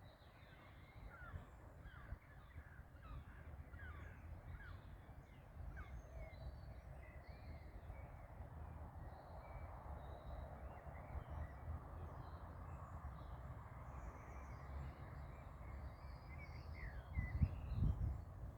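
Many birds calling at once: short chirps and gliding notes overlapping, over a steady low rumble. A louder low rumble swells briefly near the end.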